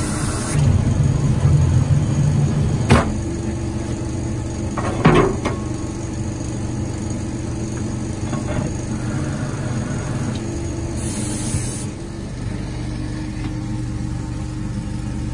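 Engine of a Roddie Pit Shot directional drill rig running steadily, louder for about two seconds near the start. Two sharp knocks come about three and five seconds in.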